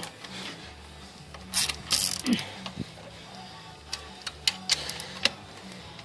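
Hand tools clinking and tapping against metal engine parts while the throttle linkage is worked loose: a handful of irregular sharp clicks and knocks over a faint low hum.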